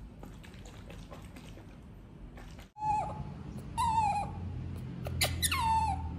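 Baby monkey crying: three short, high-pitched calls in the second half, the last gliding down in pitch.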